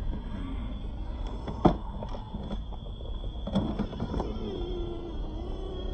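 Small electric RC scale crawler driving up a sandy dirt bank: its motor and gears whine, the pitch wavering with the throttle, over a low rumble. Two sharp knocks, about a second and a half in and again halfway through, as the truck's chassis and tyres strike the bank.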